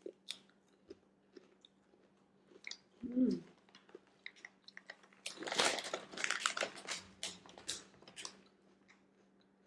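Close-up biting and chewing of a crunchy beef-flavoured snack. The crunching is loudest from about five to eight seconds in, with a few small clicks before it and a short hum about three seconds in.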